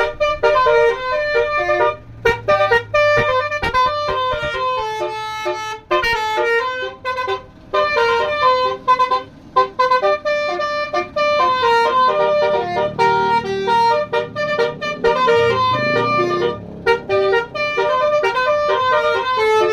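Basuri-style multi-trumpet truck air horn driven by a DAV melody module, playing a tune of short, loud notes that step up and down with brief gaps between phrases.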